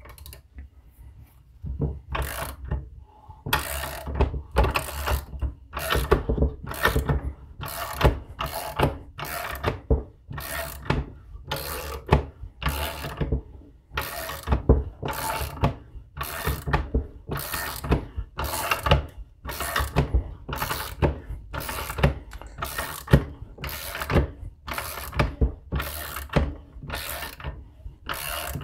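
Hand socket ratchet clicking in a steady run of strokes, a little faster than one a second, starting about two seconds in. It is turning the forcing screw of a cam bearing installer, pressing a new cam bearing into a Harley-Davidson Evolution engine case.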